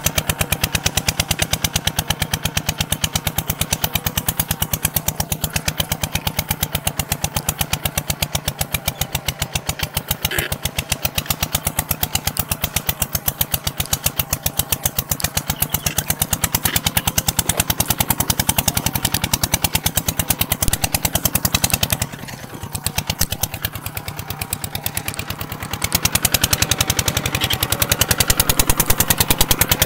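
Kubota ZT180 single-cylinder diesel engine running with a rapid, even exhaust beat. It drops quieter for a few seconds about two-thirds of the way in, then picks back up.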